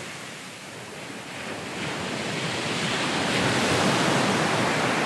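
Sea surf washing, a steady rush of noise that swells gradually to its loudest near the end.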